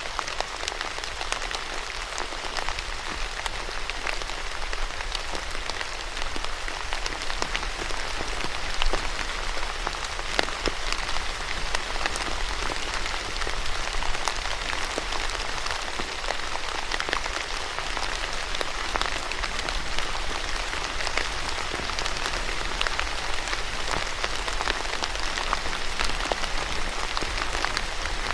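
Steady rain falling: an even hiss dotted with many distinct drop ticks.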